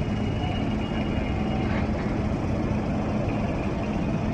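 Heavy mining machinery running steadily in an open-pit mine, a continuous low drone with a hum.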